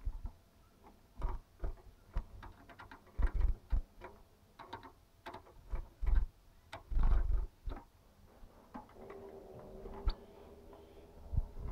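Irregular sharp clicks and soft knocks of a caged goldfinch cracking sunflower seeds and moving about the cage. A steady low hum comes in for the last few seconds.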